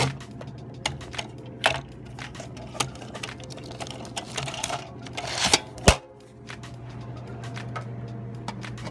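Plastic clicks and clacks as the cash box of a vending machine's bill acceptor and its plastic panels are opened and handled, over a steady low hum. A rustling stretch about five seconds in ends in one sharp snap near six seconds.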